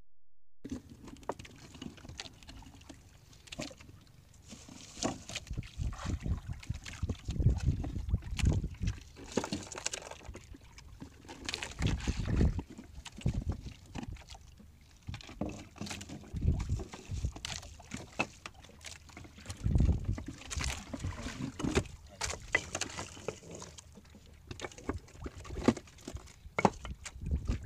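Handling and movement noise aboard a small fishing boat on the water: irregular knocks and bumps over a low rumble of wind on the microphone.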